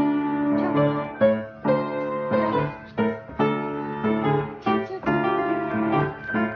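Piano being played with both hands: notes and chords struck in a steady rhythm, a new one about every half second.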